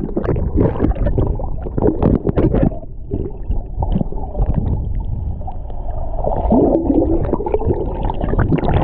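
Water gurgling and sloshing around a camera held just beneath the sea surface, muffled, with splashy crackles in the first few seconds and again near the end.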